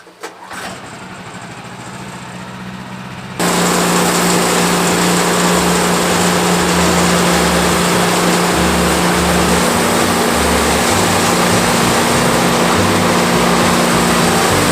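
Gas engine of a Woodland Mills HM126 portable band sawmill starting and running, then jumping suddenly to a much louder steady full-throttle run about three and a half seconds in.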